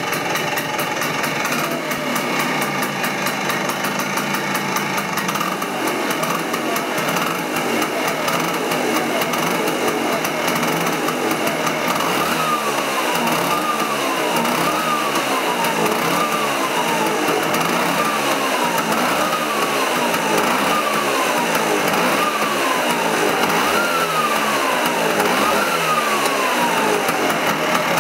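Piaggio Vespa PX200's two-stroke single-cylinder engine running steadily. From about twelve seconds in, its revs rise quickly and sink back about ten times, roughly every second and a half.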